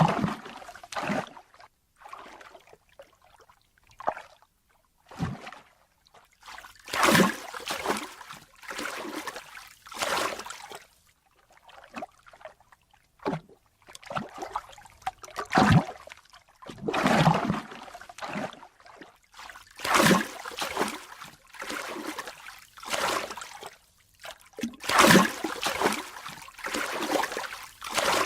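Ocean water splashing and sloshing in irregular surges, each a second or two long with short quiet gaps between.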